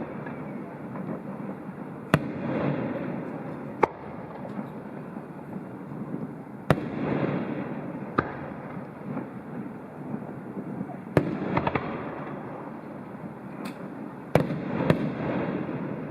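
Aerial fireworks display: shells bursting with sharp bangs at irregular intervals of one to three seconds, each followed by a rolling rumble, with a quick pair of bangs near the end.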